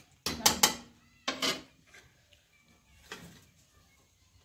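Steel ladle clanking against a steel kadhai while stirring curry: a quick run of sharp metallic clacks in the first second and a half, then a fainter clink about three seconds in.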